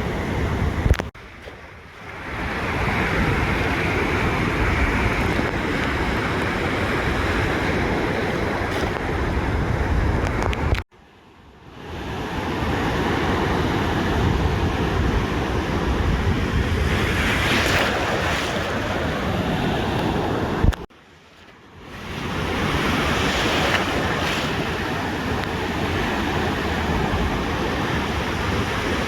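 Ocean surf washing onto a beach, a steady rush with waves swelling and breaking every few seconds, and wind on the microphone. The sound drops out abruptly for about a second three times, roughly ten seconds apart.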